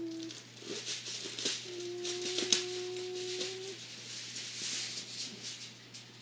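A steady, flat hum held for about two seconds, starting about a second and a half in: a child's pretend dispenser noise. It plays over scattered rattling and rustling of toy pieces being handled.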